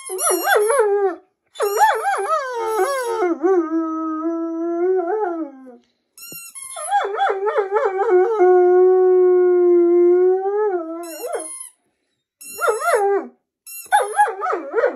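German shepherd howling: a run of wavering howls with short breaks between them, two of them settling into a long steady note held for about two seconds.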